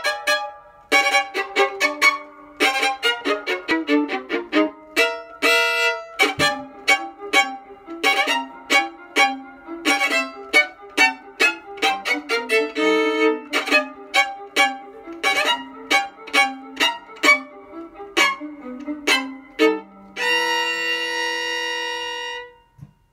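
Solo violin playing a lively tune of short, separate bowed notes, ending on one long held note.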